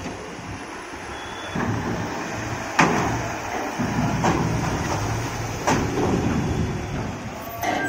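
A truck's diesel engine running as it drives across the steel loading ramp of a vehicle ferry, with four loud metallic clanks as its wheels pass over the ramp plates, the loudest about three seconds in.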